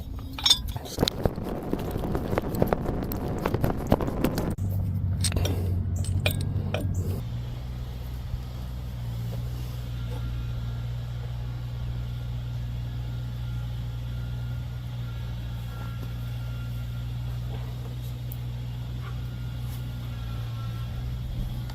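Metal clinking and rattling of hand tools on the mower's clutch bolt and washers for several seconds, then a steady low machine hum that runs on.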